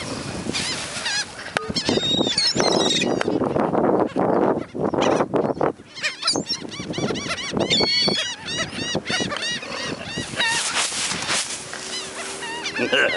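A flock of gulls calling, many short cries overlapping, each rising and falling in pitch.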